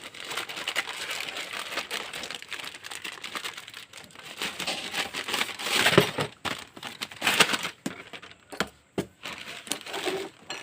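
Crinkling and rustling with scattered clicks as a new motorcycle speedometer cable is handled, with a few sharper knocks around the middle.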